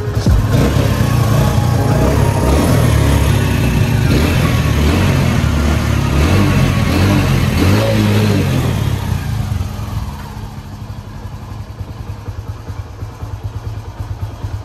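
Hero Passion Pro motorcycle's single-cylinder engine running and being revved up and down, then dropping away about ten seconds in.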